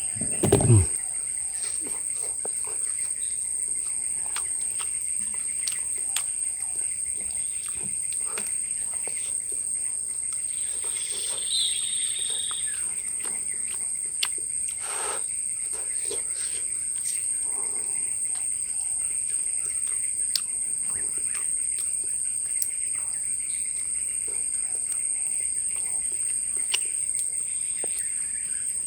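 Forest ambience: a steady high-pitched insect drone with scattered faint clicks, a low thump just after the start, and a short bird chirp about eleven seconds in.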